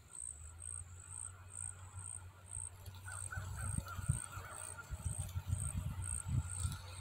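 Insect chirping at a high pitch in an even rhythm, about two chirps a second, with low rumbling thumps on the microphone that grow stronger in the second half.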